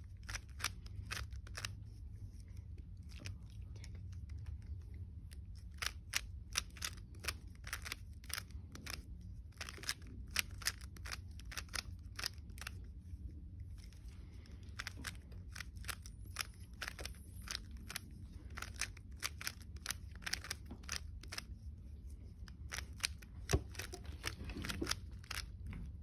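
A 3x3 Rubik's cube being turned by hand in quick, irregular moves: a run of sharp plastic clicks and clacks, a few each second with brief pauses, over a steady low hum.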